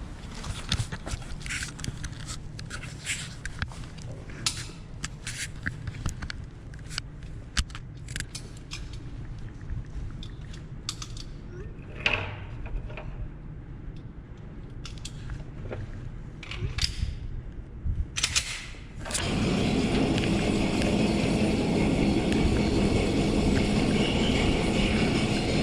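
Scattered sharp clicks and knocks of pistol and magazine handling between shooting rounds. About nineteen seconds in, a loud steady rushing noise starts suddenly and keeps on.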